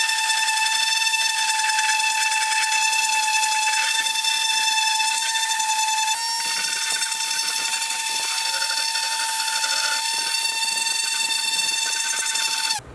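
An electric power tool running steadily at high speed with a high-pitched whine over a hiss, its pitch shifting slightly about halfway through, then switched off and stopping abruptly near the end.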